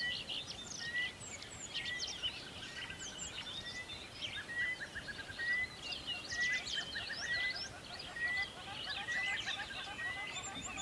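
Many small birds chirping and twittering together, with one short note repeating evenly about every two-thirds of a second.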